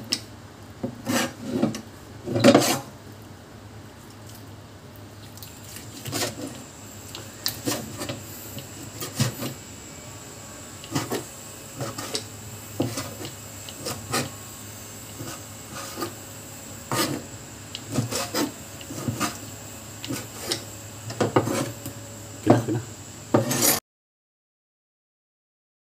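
Cleaver chopping goat offal on a plastic cutting board: irregular knocks, one or two a second, stopping abruptly near the end.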